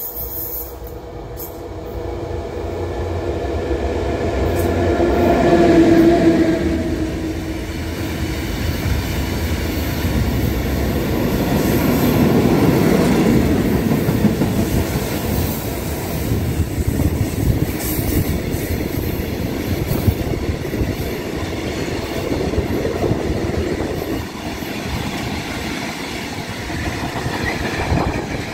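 Freight train of tank wagons hauled by a PKP class EU07 electric locomotive passing close by. The locomotive's steady hum grows louder as it nears and is loudest about six seconds in. The tank wagons then roll past with a continuous rumble and rhythmic wheel clatter over the rail joints.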